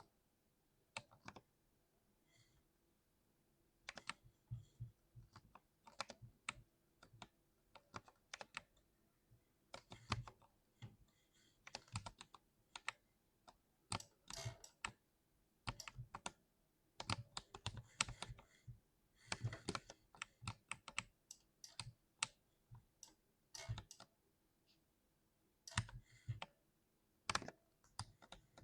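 Typing on a 60% mechanical keyboard: irregular runs of keystrokes, a few to several a second, broken by pauses of a second or two.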